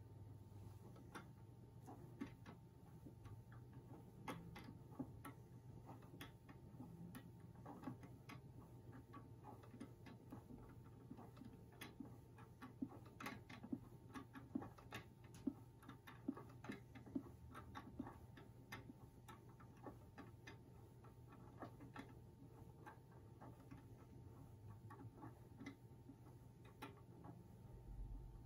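Faint, uneven mechanical ticking and clicking from the display box's lifting mechanism as its platform slowly raises the knife. The clicks come a few times a second and are loudest partway through.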